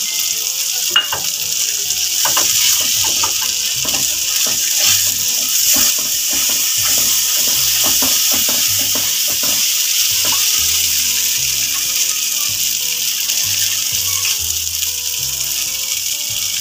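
Thick masala paste sizzling in hot oil in a non-stick pan while a silicone spatula stirs and scrapes it. A busy run of quick scrapes and taps comes over the first ten seconds or so, under a steady hiss.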